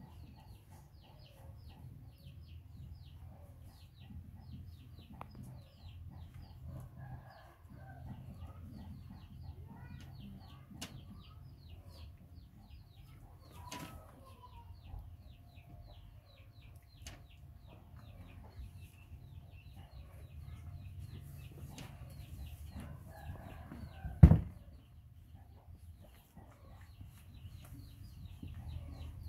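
Chickens calling: a steady run of short, high, falling peeps with occasional clucks. There is a single loud thump a little past the middle.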